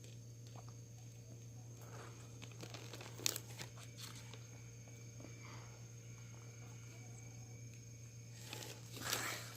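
Quiet crunching and chewing of Pepero chocolate-coated biscuit sticks, with scattered small crunches and one sharper crunch about three seconds in.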